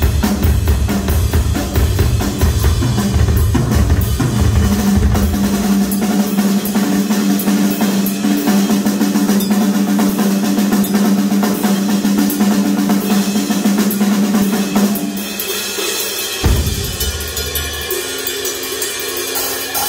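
Live rock drum solo on a Ludwig drum kit: dense fast strokes with heavy bass drum beats for the first few seconds, then a long fast roll with a steady ringing drum tone for about ten seconds, then lighter playing with more cymbal and a single heavy bass drum hit near the end.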